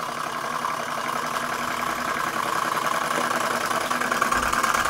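Single-cylinder Bing hot air engine running with a fast, even mechanical beat, its wick burner just pulled away so it is running only on residual heat in the cylinder. The sound grows slightly louder across the few seconds.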